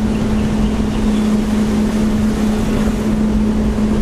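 A vehicle engine running steadily while driving, with a constant hum and road and wind noise.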